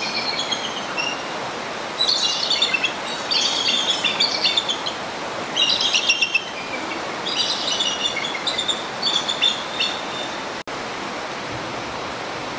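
Bursts of high, rapid chittering bird calls, about six in a row a second or two apart, over a steady rush of water from the enclosure's water feature.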